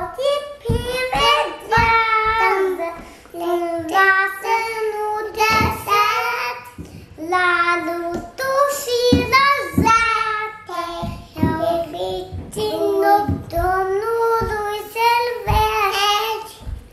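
Two young children singing a Romanian children's hymn together in phrases, with brief breaks between lines.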